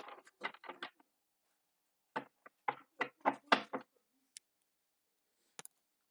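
Quick runs of light taps and knocks from a deck of tarot cards being shuffled by hand and knocked against a surface: a burst in the first second, a longer burst from about two to four seconds, then a few single clicks.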